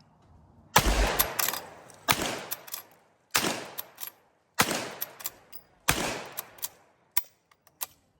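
Henry lever-action rifle in .45 Colt fired five times, about a second and a quarter between shots, each report trailing off. A few faint sharp clicks follow near the end.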